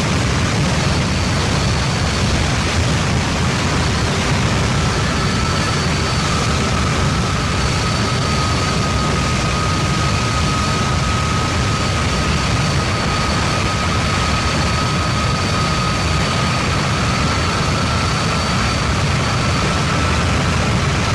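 Harsh noise wall: a dense, unchanging mass of rumbling static, heaviest in the low end. Faint steady high whines hang on top of it, one of them coming in about five seconds in.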